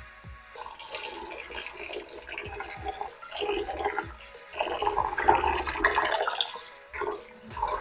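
Tap water running into a glass bowl of rice in a stainless steel sink while hands swirl and rub the grains, with irregular sloshing and splashing that is loudest a little past the middle.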